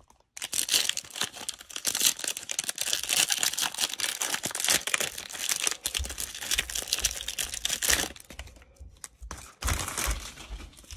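Plastic wrapper of a Panini Prizm basketball card pack crinkling and tearing as it is opened by hand, a dense crackle that thins to scattered crackles about eight seconds in, with a few low handling thumps.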